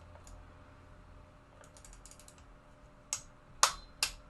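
Ratcheting torque wrench turning a crank arm's 5 mm pinch bolt: faint ratchet clicks as it is worked back and forth, then from about three seconds in, loud sharp clicks as the wrench reaches its 14 Nm setting, the sign that the bolt is at the correct torque.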